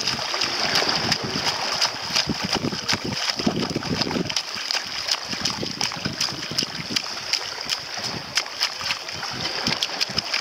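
Bare feet stamping and splashing in shallow seawater, a quick run of short splashes over a steady high hiss.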